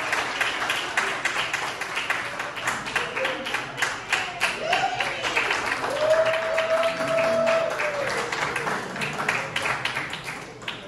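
Audience applauding and cheering, with one voice holding a long cheer about six seconds in. The applause dies away near the end.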